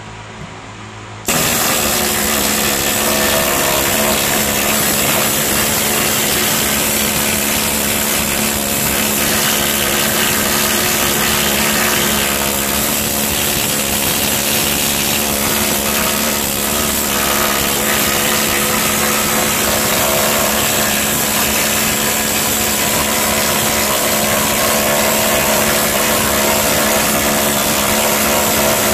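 Harbor Freight compact air needle scaler starting up about a second in, then hammering without a break as its bundle of steel needles chatters against heavily rusted steel, chipping off the scale.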